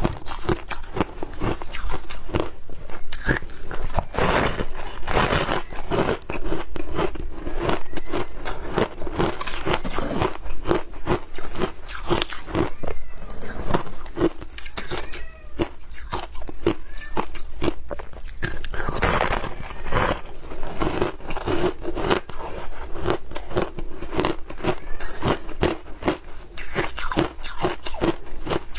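Packed shaved ice crunching in a dense, irregular run of crisp crackles and crunches.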